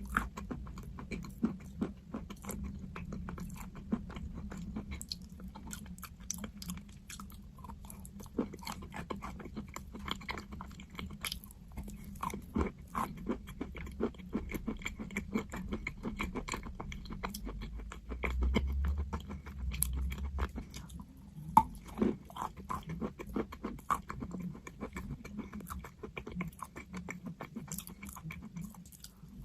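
A person biting and chewing crunchy chalk close to the microphone: a dense run of sharp crunches and crackles.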